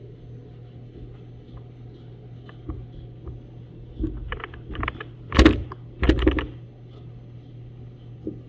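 Swing-away heat press being opened at the end of a pre-press: a few light clicks and rattles, then two loud metal clunks about five and six seconds in as the upper platen is released and swung aside. A steady low hum runs underneath.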